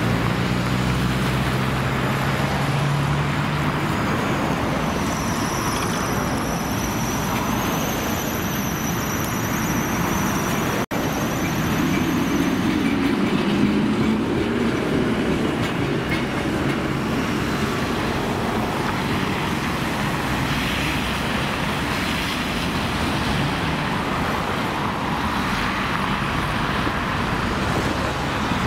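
Trams running on street track: a low motor hum at first, then the rumble of wheels on rails as a tram passes close, with a thin high-pitched whine lasting several seconds in the first half, all over steady road traffic noise.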